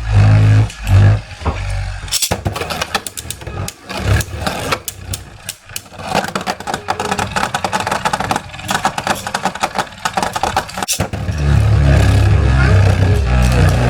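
Two left-spin Beyblades, a 3D-printed Mystic Ultraus and a Geist Faenir, spinning in a plastic stadium: a low rumbling whir at first, then about two seconds in a long run of rapid clicking clashes as the tops hit each other, ending near eleven seconds when the low whir returns.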